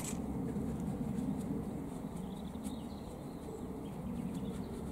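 Garden ambience: a steady low rumble with a few faint bird chirps about three seconds in, and light scattered clicks and rustles of gloved hands working at a vegetable bed.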